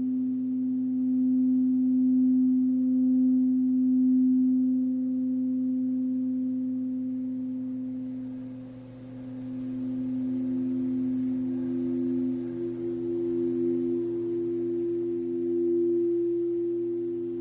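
Singing bowls humming in long sustained tones that swell and fade slowly. A second, higher-pitched bowl tone joins about ten seconds in.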